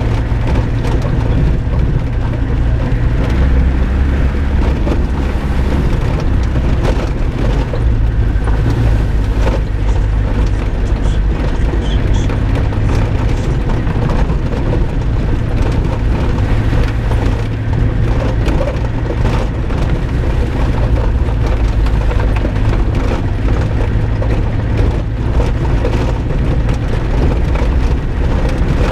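Four-wheel-drive vehicle's engine running with a steady low drone at slow speed on a rough dirt track, with frequent knocks and rattles from the bumps.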